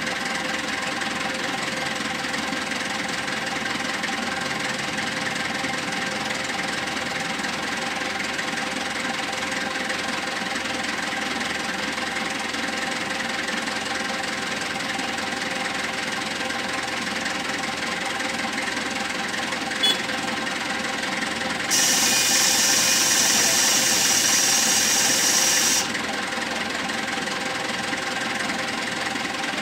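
SYZG wheel loader's diesel engine running steadily on a test run after servicing. Near the end a loud hiss lasts about four seconds, then stops suddenly.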